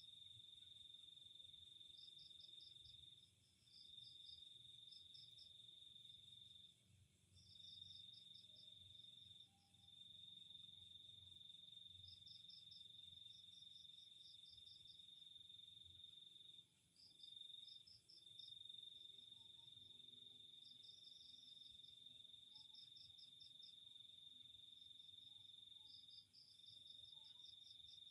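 Faint insect chorus: one insect trills steadily on a single high note that breaks off briefly a few times, while another chirps in short, quick runs of several pulses, repeating every second or two.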